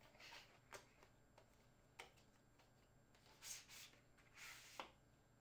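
Faint rustling and scraping of a cardboard product box being handled, its inner tray sliding out of the outer sleeve in two brief swishes, with a few light taps and clicks.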